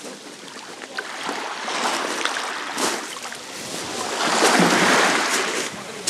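Light surf on a pebble beach: small waves washing up over the stones and draining back on a nearly calm sea, with one wash swelling loudest about four to five seconds in.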